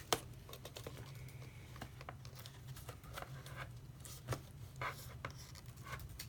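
Small clicks, taps and scraping of hands handling a 2013 MacBook Pro 13-inch as its display assembly is worked loose from the base, with a sharp click just after the start. A steady low hum runs underneath.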